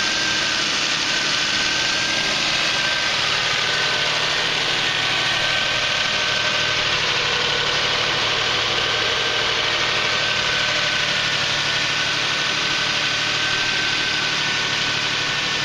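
Toyota Sienna V6 engine idling steadily under the open hood, with the new radiator installed. A steady rushing hiss with a faint, slightly wavering high whine over a low hum.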